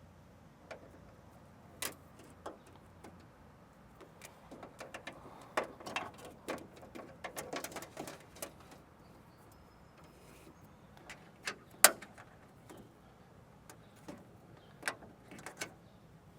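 Plastic clicks and rustling from handling a car's wiring harness and cable ties: scattered single clicks, a busy stretch of quick clicking and rustling in the middle, and one sharp snap a little before twelve seconds in.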